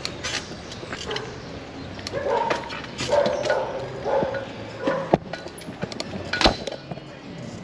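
A dog barking a few times in short calls, followed by a couple of sharp knocks near the end.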